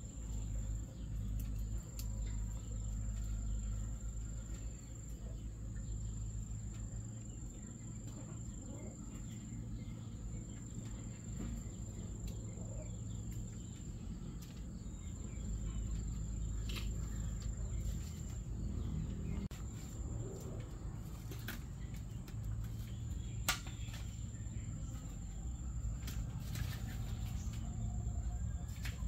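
Outdoor ambience with a steady low rumble, over which an insect chirrs on one unbroken high note. A few sharp clicks and snaps in the second half, the loudest about two-thirds of the way through, from hands working bamboo strips.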